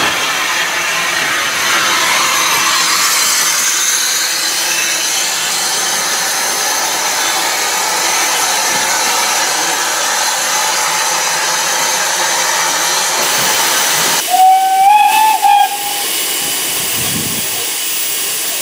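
Steam locomotive hissing loudly and steadily with escaping steam, then one whistle blast of about a second and a half, its pitch wavering slightly, about fourteen seconds in; after it the hiss carries on more quietly.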